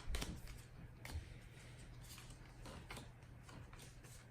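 Faint handling of trading cards and paper pack wrappers: a few soft clicks and rustles, the sharpest right at the start.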